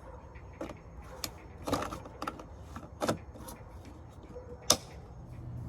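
Scattered clicks and knocks of handling during refuelling of a generator, the fuel can and cap being worked, with one sharp click near the end.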